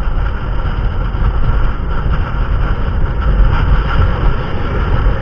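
Motorcycle engine running while riding, under heavy wind rumble on the microphone.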